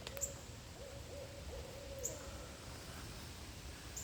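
An owl calling, a long wavering hoot that bends up and down in pitch and stops about two and a half seconds in. Steady heavy rain falls beneath it, with a few sharp ticks.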